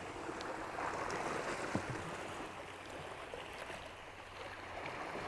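Sea water washing and sloshing, a steady rush of water noise, with a few faint clicks.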